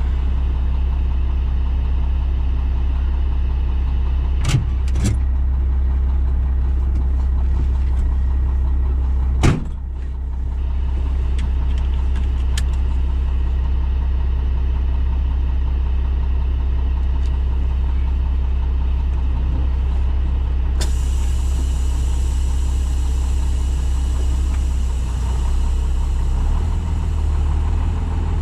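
Dump truck engine idling steadily, heard from inside the cab as a deep, even hum. A few sharp clunks come about 4, 5 and 9 seconds in, the last the loudest, and a steady high hiss joins about two-thirds of the way through.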